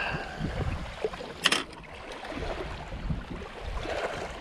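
Wind rumbling on the microphone, with small waves lapping at a rocky shoreline. A single sharp click comes about a second and a half in.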